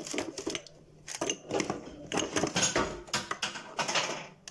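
Light, irregular clicks and clatter of kitchen containers being handled while spices are added to the chicken.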